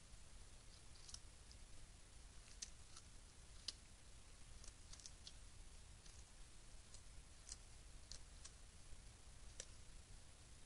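Paca feeding at a pile of avocados and bananas: about a dozen faint, irregular clicks of gnawing over a steady low hiss.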